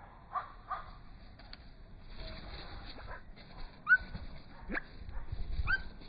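Short, rising animal calls, several times over, with a sharp knock about four seconds in.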